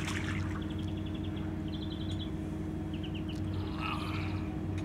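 A small bird chirping in several short, rapid high trills, over a steady low hum.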